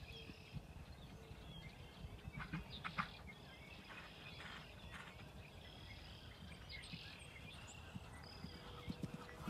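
Faint open-air ambience: small birds chirping on and off, over a low, uneven rumble of wind on the microphone.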